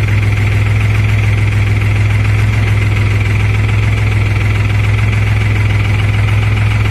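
New Holland TT4.55 tractor's diesel engine running steadily, with a steady hiss higher up.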